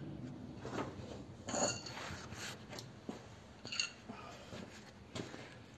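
Faint, scattered metallic clinks and light knocks, about five in all, some with a brief ring, from a metal pry bar and hand tools handled against a flathead engine's generator and bracket while the fan belt is being tensioned.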